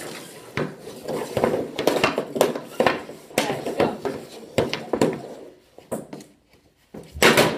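Hockey stick blade stickhandling a puck on a synthetic shooting surface: a run of quick wooden clacks, a few a second, thinning out about six seconds in. Near the end comes one much louder sharp impact.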